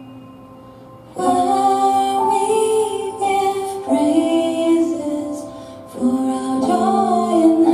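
Slow, gentle music: a held note fades away, then about a second in a soft melody of long held notes begins, dipping briefly after the middle before going on.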